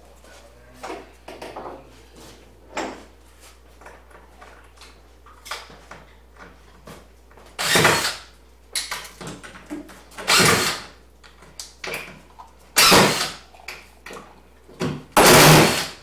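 Power drill driving screws into wood in four short runs of about half a second each, with small knocks and clicks between them.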